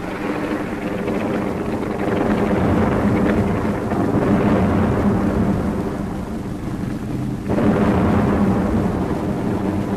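Tank engines running as the tanks advance: a heavy, continuous low rumble with a steady engine drone, getting louder about seven and a half seconds in.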